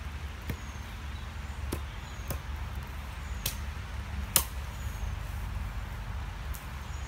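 Hatchet chopping wood: about six sharp chops at uneven intervals, the loudest about four and a half seconds in, over a steady low rumble.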